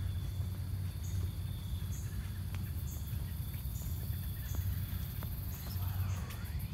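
Night insects calling in woodland: a short high chirp repeating about once a second over a faint steady high trill, above a low steady rumble.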